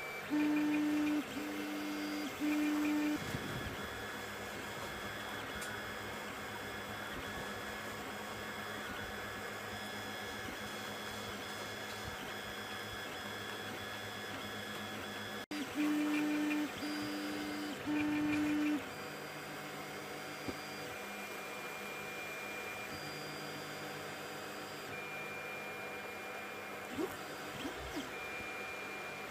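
Creality CR-10 3D printer printing, its stepper motors giving a steady hum of several overlapping tones. Twice, a louder low tone sounds three times in quick succession.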